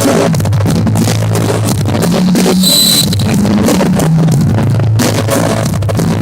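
Loud rock music with drums and a bass line.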